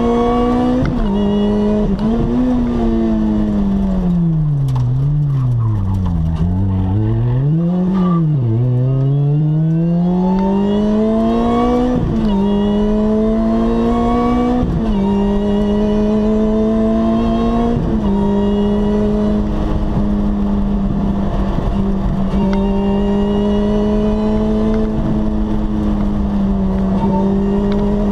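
Lotus Exige S engine heard from inside the cabin while driving. The revs climb and drop sharply through several gear changes, fall away and rise twice as the car slows around six to nine seconds in, climb again through more upshifts, then hold steady at a cruise for about the last ten seconds.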